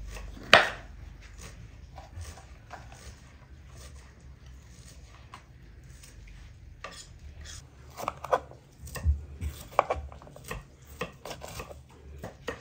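Kitchen knife chopping food on a cutting board in irregular strokes: one sharp knock about half a second in, scattered lighter taps, then a denser run of chops from about eight seconds in.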